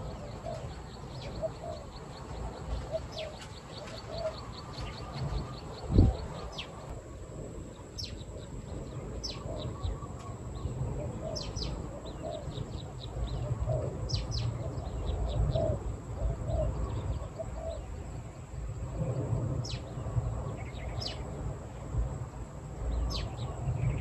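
Doves cooing in repeated soft low notes, with small birds chirping in short high calls and a fast, even ticking trill in the first several seconds. A single loud thump comes about six seconds in.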